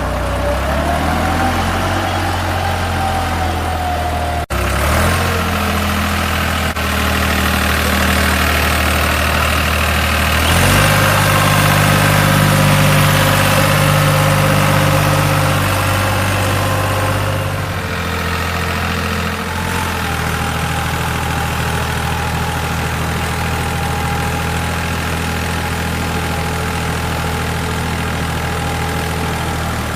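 Engine running steadily at idle, stepping up to a higher, louder note about ten seconds in and settling back down about eighteen seconds in, with a faint steady whine over it.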